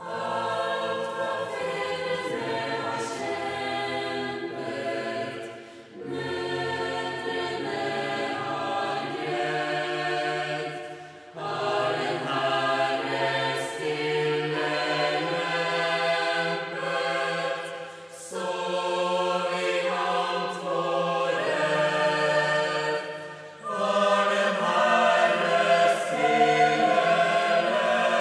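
Mixed choir of young men and women singing a song together, in long held phrases with a short breath pause about every five to six seconds.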